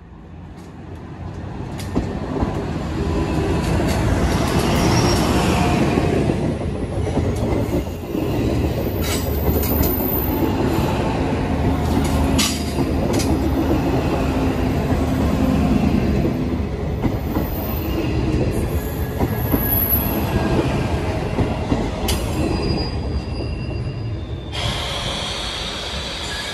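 Two coupled DSB IC4 (Litra MG) diesel multiple units running through the station. The sound grows louder over the first few seconds, with high wheel squeal at times and scattered clicks from the wheels over the rails. Near the end the sound changes abruptly.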